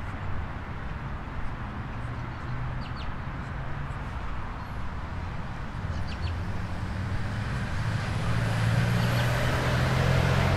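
A motor vehicle's engine hum, steady at first and growing louder over the last few seconds as it approaches, over general traffic noise.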